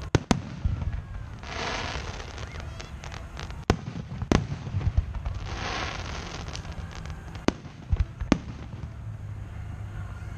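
Aerial fireworks shells bursting: about seven sharp booms spaced irregularly, a couple of them in quick pairs, over a steady low rumble. Two short spells of hiss fall between the booms.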